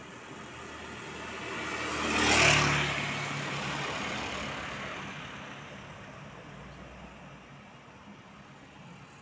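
A car driving past close by, rising as it approaches, loudest about two and a half seconds in, then fading away.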